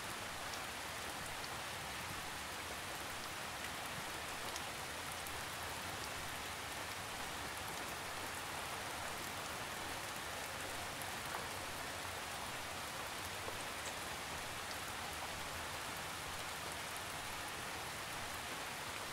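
Steady rainfall: an even hiss of rain with scattered faint drop ticks, unchanging throughout.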